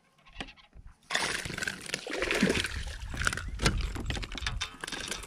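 Sudden splashing and sloshing water with knocks and clatter starting about a second in: a hooked bass thrashing at the kayak.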